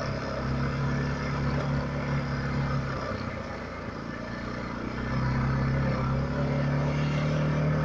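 Quad bike (ATV) engine running while riding along a dirt field track, heard from the rider's seat. The engine note eases off about three seconds in and picks up again after about five seconds.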